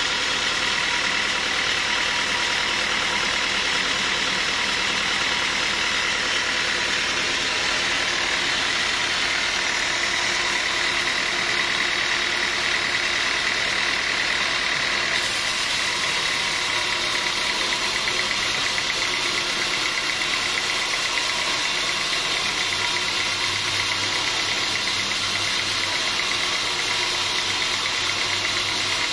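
Sawmill machinery running steadily, a continuous mechanical drone with a high whine over it; the tone shifts a little about halfway through.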